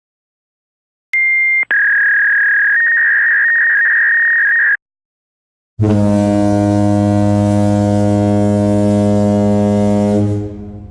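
Two sound effects in a row. First, a steady high electronic beep lasting about three seconds, preceded by a brief higher blip. Then, after a short gap, a low, harsh, steady buzzer tone lasting about five seconds that fades out near the end.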